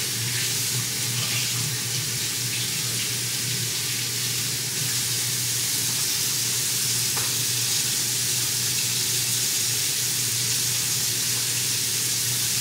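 Steady rushing hiss of water, with a constant low hum under it, unchanging throughout.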